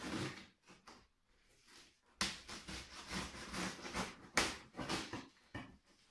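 Packing tape on a cardboard box being slit with a blade and pulled away: a run of irregular scratchy ripping and scraping noises starting about two seconds in, with one sharp loud snap about four seconds in.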